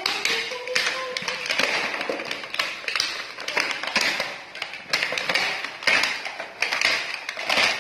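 Plastic toy-set packaging being opened: steady crinkling and rustling, broken by many quick small taps and clicks.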